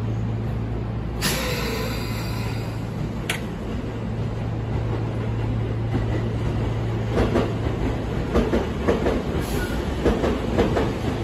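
Sotetsu electric train running along the adjacent platform track over the points, its wheels clacking over rail joints more and more often from about seven seconds on, over a steady low hum. A short sharp squeal comes about a second in, and a single click near three seconds.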